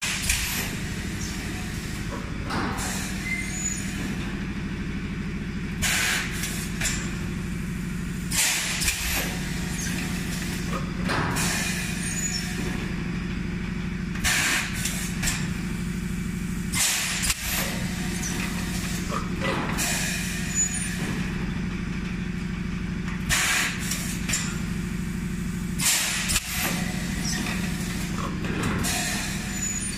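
Semi-automatic PET bottle blow-moulding machine running with a steady low hum. Every two to three seconds comes a short hissing blast of compressed air with a clank, as the pneumatic cylinders cycle to clamp the moulds and blow or exhaust the bottles.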